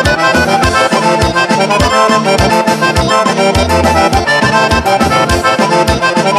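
Instrumental break in a Serbian folk song: an accordion plays a fast run of notes over a steady bass beat.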